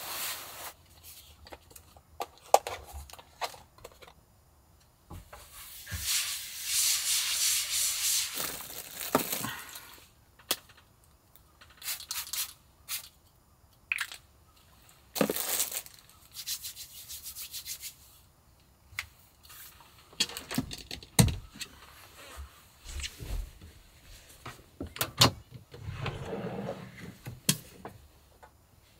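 Handling noises: a nylon down jacket rustling as it is taken off, scattered light taps and knocks, and a drawer sliding open near the end.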